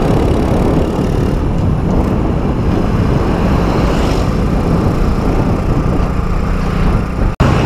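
Motorcycle riding at cruising speed on a highway: steady engine hum under heavy wind noise on the microphone. The sound cuts out for an instant near the end.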